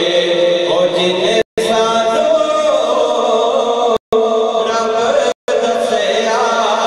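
A man reciting a naat, singing in a chanting style into an amplified microphone. The sound drops out completely for a split second three times.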